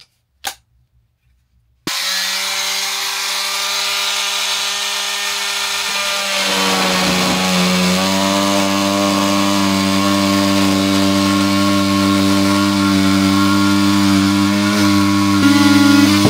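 Cordless oscillating multi-tool cutting a rectangular opening in a wooden cabin panel. It starts about two seconds in with a steady buzzing drone, and its pitch shifts around six to eight seconds in as the blade works into the panel.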